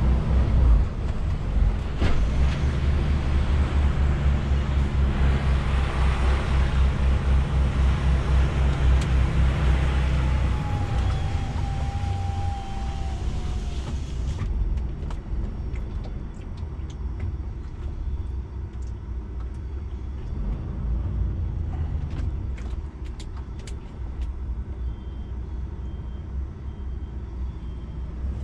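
DAF XF 480's PACCAR MX-13 diesel engine running at low speed, heard from inside the cab while the truck manoeuvres slowly. Its pulsing rumble is strong in the first half and drops away about halfway through, with a few light clicks near the end.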